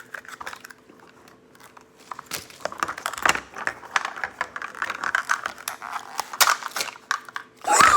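Plastic packaging of a Mini Brands surprise ball crinkling and crackling as it is handled and opened, with a run of quick irregular clicks from about two seconds in. A faint steady hum runs underneath.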